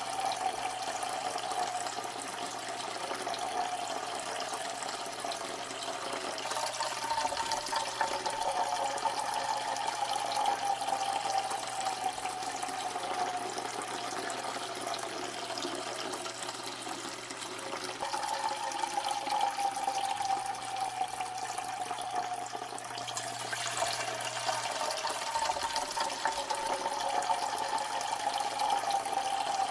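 A steady stream of liquid splashing into water: a peeing sound effect. A ringing tone in the splash slowly drops in pitch, jumps back up about two-thirds of the way through, then drops again.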